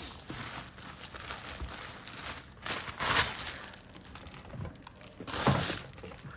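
Rustling and crinkling of hands handling a pair of leather shoes on a display stand, turning them and lifting them off, with louder rustles about three seconds in and again near the end.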